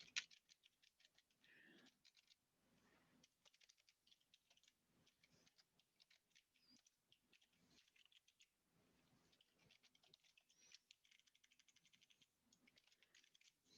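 Faint typing on a computer keyboard: irregular runs of soft key clicks, bunched in quick bursts with short pauses between.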